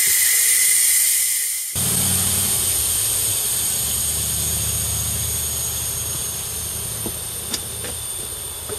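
Air hissing out of a Land Rover Discovery tyre through the open valve stem, its core removed to let the tyre go completely flat. After an abrupt cut about two seconds in, the hiss goes on with a low rumble underneath and slowly fades as the tyre empties.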